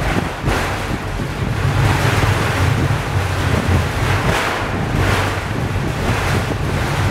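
Steady low rumble and rushing noise of the 1900 Pic du Jer funicular car running down its track, the hiss rising and falling unevenly.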